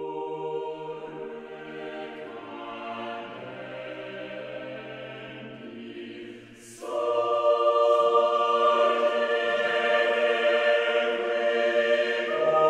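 Choral music: a choir holding slow, sustained chords, swelling markedly louder and fuller about seven seconds in.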